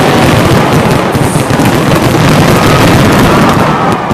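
Dense, continuous barrage of aerial firework explosions and crackling, with bangs overlapping so closely they merge into one very loud rumble.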